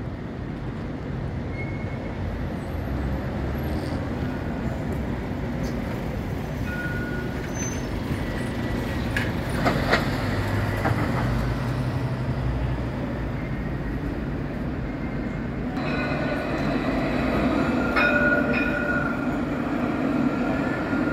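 Street traffic with city buses passing. About three-quarters of the way in, an Alstom Citadis tram comes past close by, its steady whine growing louder.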